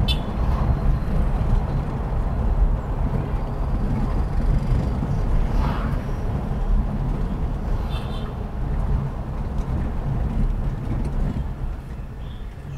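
A car driving on city streets: a steady low rumble of engine and road noise, with a few faint brief sounds from the street about halfway through and near the end.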